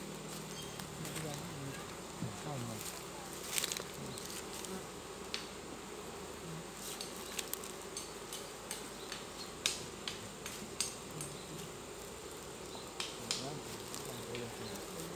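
Western honey bees (Apis mellifera) buzzing around an opened hive, single bees droning past close by with their pitch rising and falling. Light clicks and knocks of the wooden hive frames being handled are scattered throughout.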